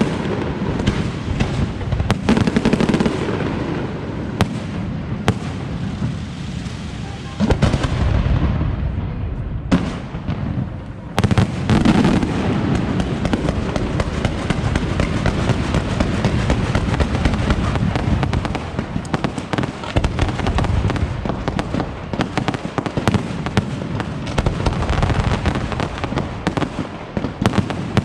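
Aerial fireworks display: a dense, continuous barrage of shell bursts and crackling. It thins out briefly about a third of the way in, then resumes just as thick.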